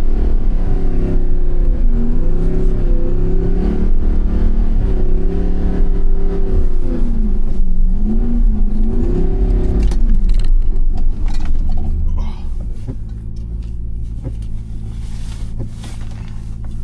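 Truck engine revving hard under load on a steep snow-covered hill climb, its pitch rising and falling repeatedly for about ten seconds. Then it eases off to a lower, steady running sound, with a few sharp knocks.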